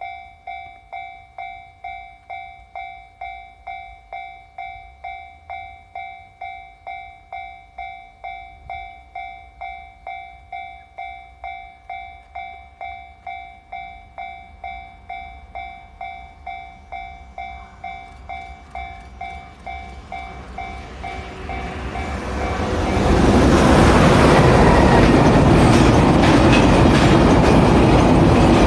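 Level-crossing warning bell dinging in a steady rapid rhythm. A train approaches from about twenty seconds in and passes close by from about twenty-three seconds, its loud wheel-on-rail noise drowning out the bell.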